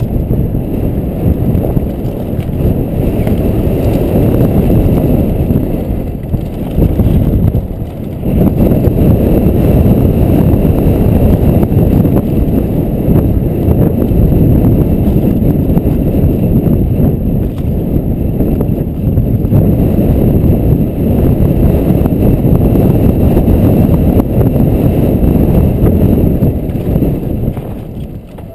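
Wind buffeting the microphone of a helmet-mounted camera on a fast mountain-bike descent, mixed with the rumble of knobby tyres rolling over a dirt trail. It eases briefly about six to eight seconds in and falls away near the end.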